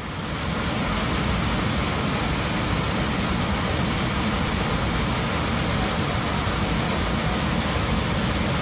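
Loud steady roar inside an Airbus A321's cabin, rushing air together with engine noise, the sign of a blast hole torn in the fuselage after an onboard explosion.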